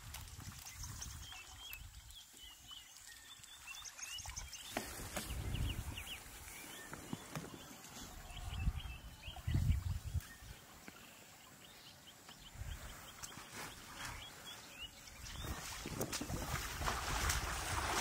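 Bush ambience with small birds chirping in short repeated phrases, scattered snaps and rustles in the grass, and low gusts of wind buffeting the microphone. A wind hiss builds near the end.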